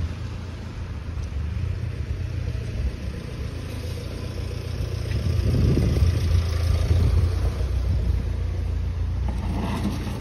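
Low, unsteady rumble of wind buffeting a phone microphone, over a steady hiss of rain on wet paving.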